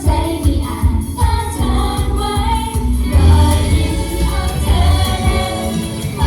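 Pop music with a group of women singing over a heavy bass beat.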